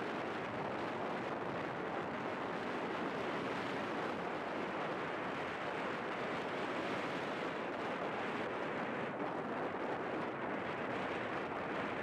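Steady rushing of wind and surf, an even noise with no distinct events.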